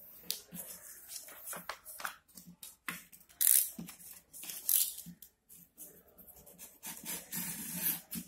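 A sheet of craft paper is handled and creased by hand, then slit along the fold with a knife. This gives scattered rustles and two sharp papery rasps, about three and a half seconds in and again about a second later.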